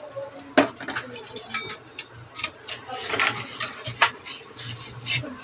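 Metal spatula scraping and clicking against a kadai as sugar is stirred in the pan: a run of irregular scrapes and sharp ticks, the loudest about half a second in and again about four seconds in.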